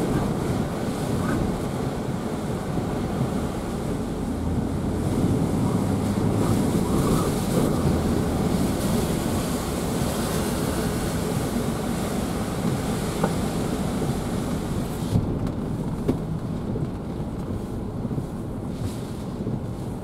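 Hurricane-force wind and heavy rain buffeting a car as it drives on a soaked road, heard from inside the car: a loud, steady rushing noise. The high hiss drops away suddenly about three quarters of the way through.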